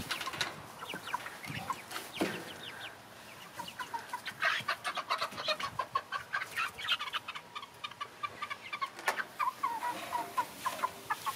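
Young Golden Comet chicks peeping in many short, high, rapid calls while being caught and handled in a stock-tank brooder. A single sharp knock about nine seconds in.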